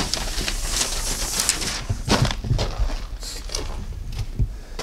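Footsteps crunching and scuffing through snow with rustling handling noise, a run of irregular crunches and a few low thuds.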